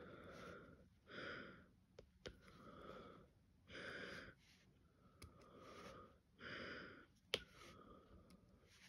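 Faint, close breathing in and out, a breath about every second or so, from someone with a cold. A few light ticks of the diamond painting drill pen against the drills, tray and canvas, the clearest a little after seven seconds in.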